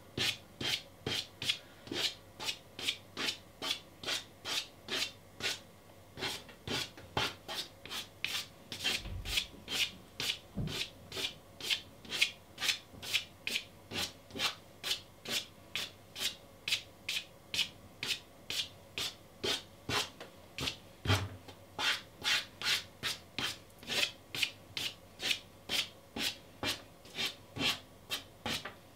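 A pastel stick scratching on gritty pastel mat in quick, repeated upward strokes, about two a second, as grass blades are drawn.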